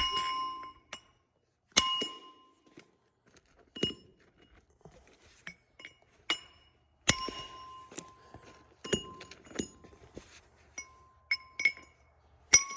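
Irregular sharp metal-on-metal strikes, about nine of them, each leaving a bright ring, on a torch-heated steel part of a Gleaner R72 combine's final drive. The loudest strike comes about seven seconds in.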